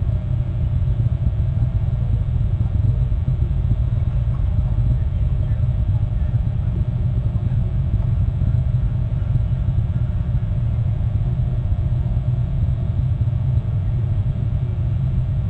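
Steady low rumble of outdoor background noise picked up by the nest camera's microphone, even throughout with no distinct events.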